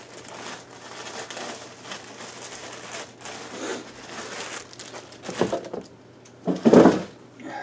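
Thin plastic packaging bag crinkling and rustling as a T-shirt is pulled out of it and unfolded, with two louder rustles near the end.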